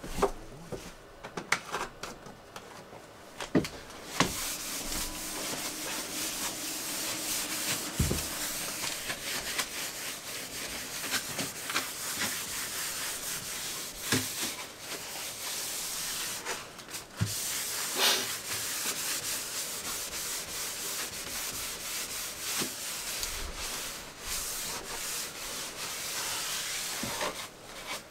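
Cloth rag rubbing back and forth over a worktop surface, a steady scrubbing hiss that starts a few seconds in, breaks briefly about halfway and stops near the end. A few knocks come before it.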